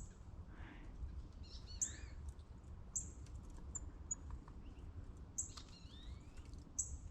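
Small woodland songbirds of a mixed chickadee, titmouse and nuthatch flock calling. Short high chirps come every second or two, with a few lower sliding call notes in between, over a faint low rumble and scattered soft clicks.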